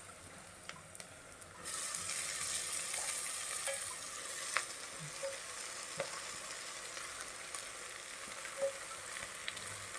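Chopped black nightshade (manathakkali) greens hitting a hot pan of sautéed onion, garlic and green chilli: a sizzle starts suddenly about two seconds in and carries on as they are stirred, with a few sharp clicks.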